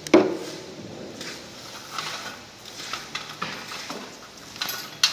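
A sharp knock of something set against the metal cable tray just after the start, then faint scratching and light handling noises as the cut lines are marked on the tray, with another short knock near the end.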